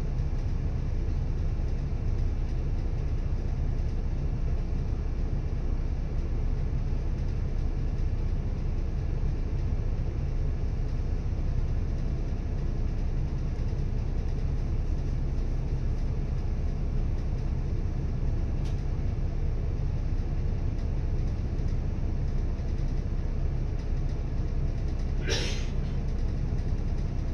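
City bus standing in traffic with its engine idling: a steady low rumble heard from inside the cabin. A short hiss of air sounds about 25 seconds in.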